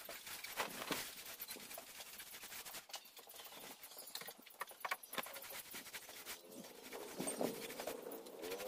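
Paint roller rolled over a painted plywood surface: a dense crackling rub in repeated strokes. Near the end a pitched whine with wavering pitch joins in.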